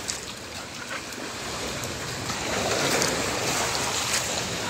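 Small waves lapping and washing at the shore's edge, a steady watery wash that grows louder in the second half.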